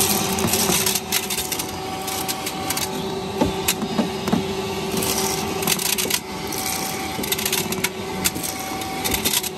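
Vacuum cleaner running steadily with a high whine, its hose sucking shattered window glass out of a car door, the glass pieces clicking and rattling irregularly as they are drawn in.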